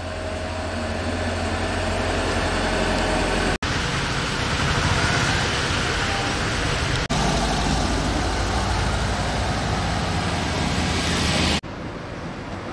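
Outdoor street noise with vehicle engines: a steady rumble and hiss that cuts off abruptly three times and starts again.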